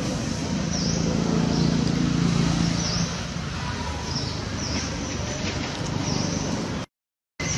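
Outdoor background noise: a steady low rumble like passing road traffic, with a short high chirp every second or two. The sound cuts out completely for about half a second near the end.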